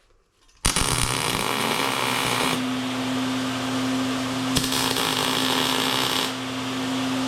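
Electric arc welder striking an arc about half a second in and holding it steadily, a continuous loud hiss with a low hum underneath, as flat steel stock is tack-welded.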